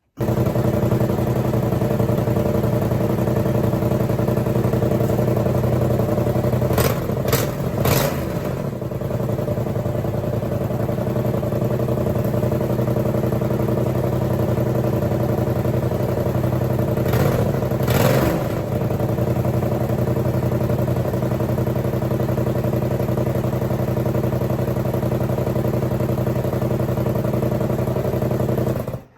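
Yamaha R7's 689 cc parallel-twin engine idling steadily, with its throttle blipped a few times about seven seconds in and again around seventeen seconds.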